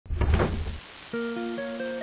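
Intro music: a short, loud, deep burst of noise, then plucked notes entering one at a time about every quarter second and left ringing, building a slow arpeggio.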